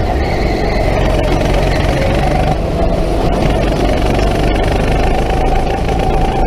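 Go-kart running at speed, heard from on board over a dense low rumble. Its steady motor tone drops in pitch about a second in and climbs back about two and a half seconds in.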